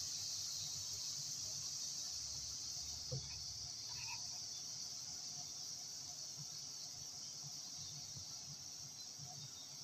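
Steady, high-pitched chirring of insects in the background, with one faint tap about three seconds in.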